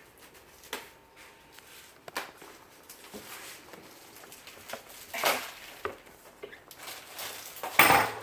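Scattered knocks, clicks and rustles from handling a new bicycle and its packaging during unboxing, with the loudest clatter near the end.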